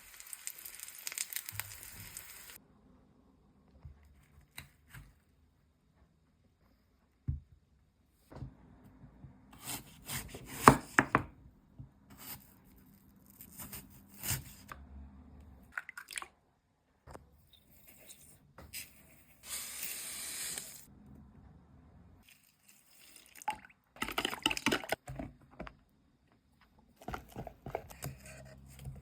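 Kitchen food-preparation sounds for apples in batter: short bursts of handling, wet squishing and liquid noises, separated by near-silent gaps.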